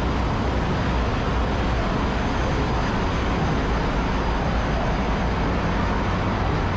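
Constant machinery din of a large ship's engine room, where a MAN B&W two-stroke main engine and Hyundai Himsen diesel generators are installed: a dense, steady roar with a deep low hum underneath and no let-up.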